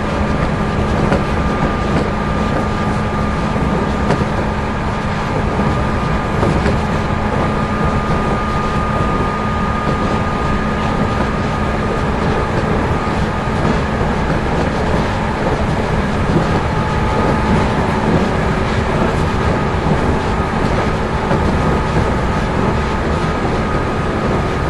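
JR 213 series electric train running along the line, heard from inside motor car KuMoHa 213-3: a steady rumble of wheels on rail with faint clickety-clack, and a steady high tone over it.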